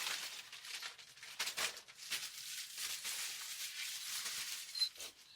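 Soft rustling and scattered light clicks of packaging being handled as an item is taken out of it.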